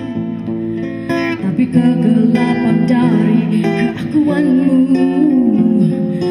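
A woman singing into a handheld microphone in long held notes that slide in pitch, over a strummed acoustic guitar. It is a sung rendering of a Malay poem.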